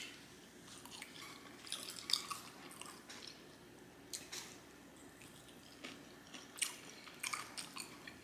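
A person chewing food close to the microphone, with wet mouth smacks coming in short clusters every second or two.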